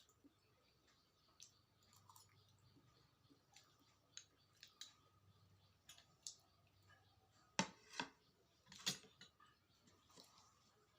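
Quiet close-up eating sounds: scattered soft mouth clicks and smacks while chewing momos, with a few louder sharp clicks about seven and a half to nine seconds in.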